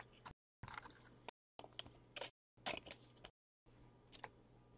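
Faint crinkling and rustling of trading-card packs and cards being handled, in short scattered bursts, with the sound cutting out completely several times in between.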